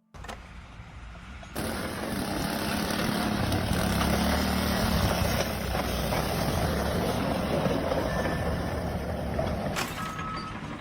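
Heavy machinery running: a steady, noisy engine-like rumble that starts suddenly and grows louder about a second and a half in, shifting near the end.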